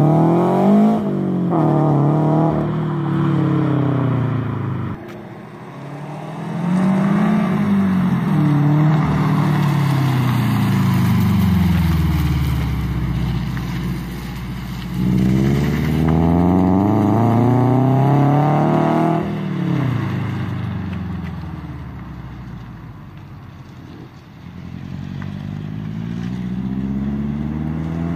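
Subaru BRZ's 2.0-litre flat-four running through a 3-inch single-exit catback exhaust, accelerating hard several times: the engine note rises in pitch through each gear and drops back at the shifts. It swells as the car passes and fades as it pulls away.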